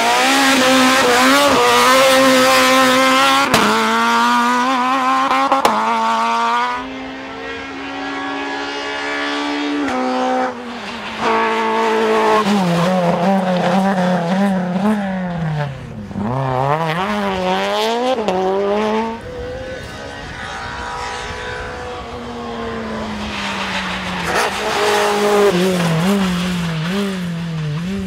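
Small four-cylinder rally cars run flat out one after another, engines revving hard. The pitch climbs and drops sharply through gear changes and lifts off the throttle, with sudden jumps where one car gives way to the next.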